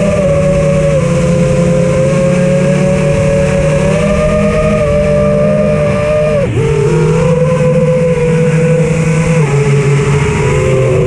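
Electric motor whine of a radio-controlled aircraft heard through its onboard camera, with wind rush. The pitch shifts with the throttle and dips sharply about six and a half seconds in before climbing back.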